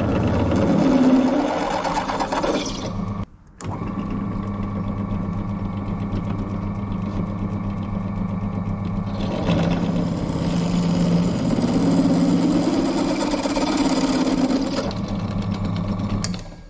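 A bench drill press runs at slow speed while its bit cuts through steel tangs under heavy feed pressure, over the steady hum of the motor. There are two spells of cutting, the second starting about nine seconds in.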